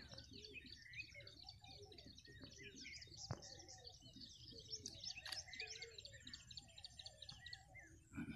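Many small birds chirping together in a continuous, overlapping chorus of short, high calls, faint overall. A sharp click stands out about three seconds in, and a fainter one comes a couple of seconds later.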